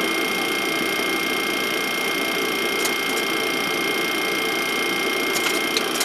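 Steady cockpit noise of an airliner taxiing on its engines at idle thrust: an even whirring hum with two high, constant whining tones over it. A few faint ticks near the end.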